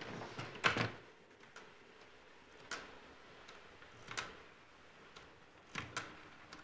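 Black desk telephone being handled and dialled: a few separate clicks and knocks a second or two apart, the loudest about a second in, with a faint steady tone coming in near the end.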